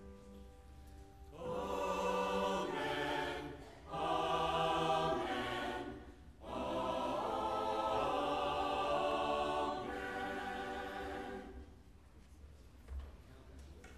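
Church choir singing a short choral response in a few sustained phrases with brief breaths between them, stopping about eleven seconds in.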